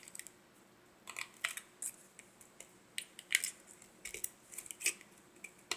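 Scattered small clicks and scrapes of metal and plastic as a phone's casing and internal parts are pried apart and handled, a dozen or so uneven ticks.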